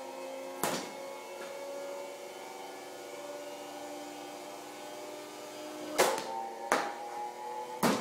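A baseball striking hard surfaces during ground-ball fielding: four sharp knocks, one just under a second in and three close together in the last two seconds, the first of those the loudest. Under them runs a steady hum of several tones.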